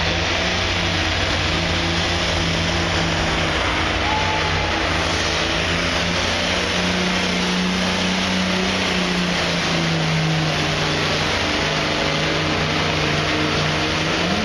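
Pulling tractor's diesel engine running flat out under heavy load as it drags a weight-transfer sled down the track: a loud, steady drone whose pitch wavers slightly.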